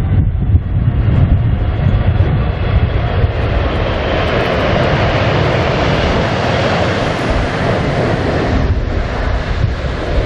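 Boeing 777-200ER airliner's jet engines passing on landing, a broad rushing roar that swells to its loudest about six to seven seconds in and then drops away, with wind buffeting the microphone throughout.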